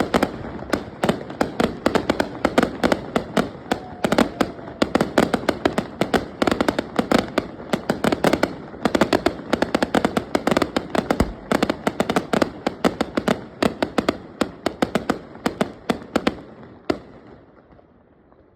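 Fireworks display going off: a dense, rapid run of bangs and crackling reports, several a second, that thins out and fades away near the end.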